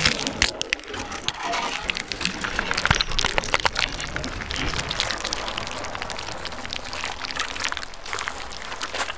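Footsteps crunching on loose gravel: an uneven run of crunches and small clicks.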